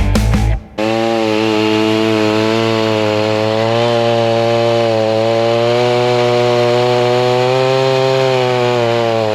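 Stihl MS290 two-stroke chainsaw running steadily, its pitch wavering slightly. Under a second in, it cuts in as a short stretch of rock music stops.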